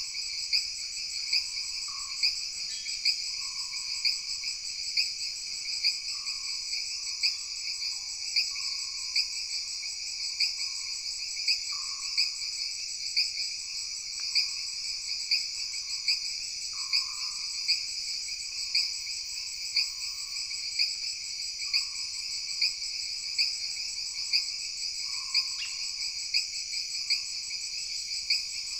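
Tropical jungle night chorus: insects keep up a steady, dense high-pitched buzzing and trilling with a regular louder pulse about once a second, while frogs call in short, lower notes every second or two.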